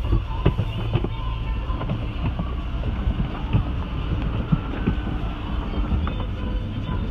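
Automatic car wash running over the car, heard from inside the cabin: a steady low noise of water spray and machinery on the bodywork, with scattered small knocks.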